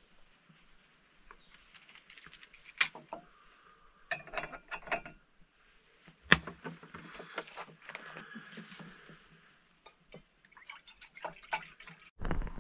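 Water being poured and sloshed, among sharp knocks and clicks of handled gear; the two loudest knocks come about three seconds apart.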